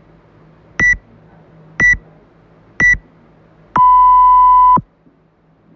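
Workout countdown timer beeping. Three short high beeps come a second apart, then a longer, lower beep of about a second marks zero, the signal to start.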